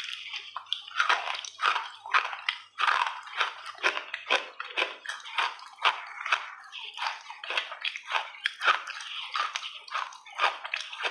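Close-miked mouth sounds of a person biting and chewing a soft food: a quick, irregular run of wet clicks and smacks, about two or three a second.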